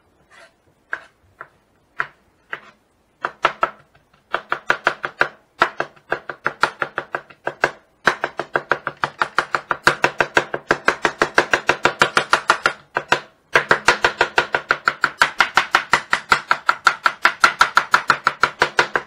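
Knife blade mincing garlic on a wooden cutting board. A few separate knocks come first. Then rapid, evenly paced chopping at about five or six strokes a second, with short breaks now and then.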